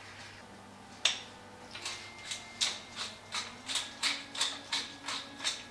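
Thermomix being set: a single knock about a second in, then a run of even clicks, about three a second, as its selector dial is turned to set the cooking time.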